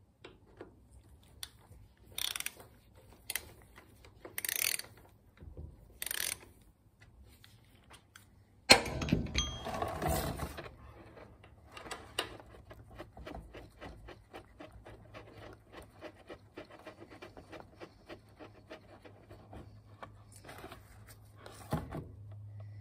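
Hand socket ratchet clicking in short bursts as it loosens the drain plug of a Harley-Davidson Fatboy's primary case. About nine seconds in comes a loud clatter, then a long run of quick light ticks as the oil drains into a plastic drain pan.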